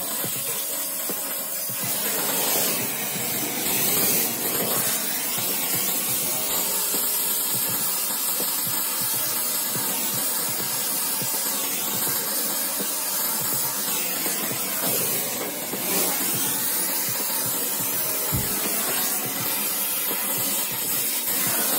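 Brazing torch flame hissing steadily while copper refrigerant line is brazed onto a scroll compressor's suction and discharge stubs.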